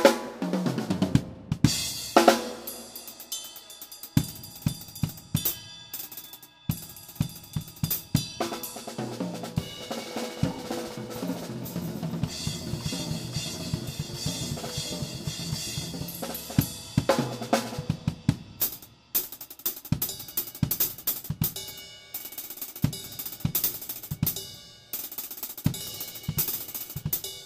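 DW Collectors Series drum kit played as a solo: snare, toms and bass drum hits mixed with hi-hat and cymbal crashes. Loud crash accents right at the start, about two seconds in and again a little past the middle, with busier, cymbal-heavy playing in between.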